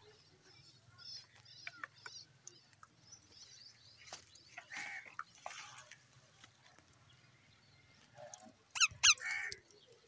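Green parakeets squabbling: scattered soft chirps and squeaks, a few louder calls midway, then a loud burst of two or three sharp screeches near the end.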